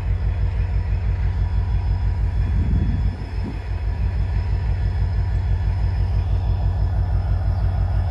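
Low, steady rumble of a CSX diesel locomotive leading a welded rail train as it creeps toward the grade crossing at about 1 mph.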